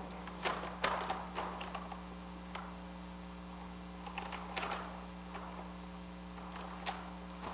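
Scattered light clicks and taps, a few close together in the first second or so and again around four to five seconds in, over a steady low electrical hum in a quiet room.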